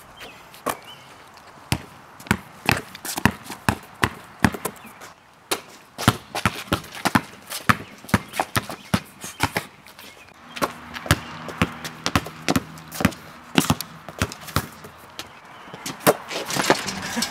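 Basketball dribbled hard on a concrete driveway: a run of sharp bounces, about two or three a second, as the ball is crossed from hand to hand.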